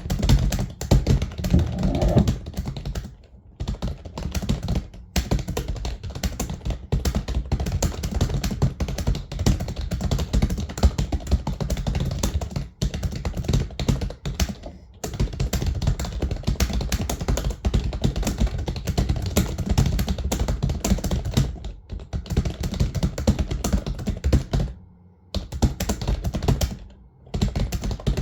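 Computer keyboard typed on rapidly in a Hindi typing speed test: a dense, continuous stream of keystroke clicks with a few brief pauses.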